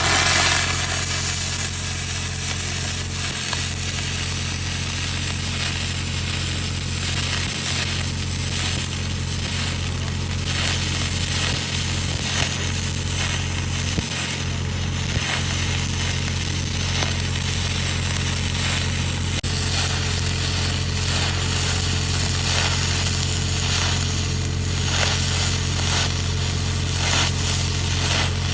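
Stick (SMAW) welding arc laying a root pass on 4-inch pipe: a steady, dense hiss with fine crackle that starts abruptly at the strike and keeps going without a break, over a steady low hum.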